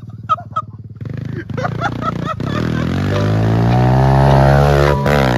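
Dirt bike engine running, then climbing steadily in pitch as it accelerates. Near the end the pitch drops and rises again quickly.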